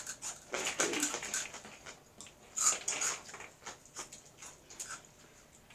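Crunchy corn snack chips being chewed close to the microphone: an irregular run of crisp crackling crunches, loudest a little under three seconds in.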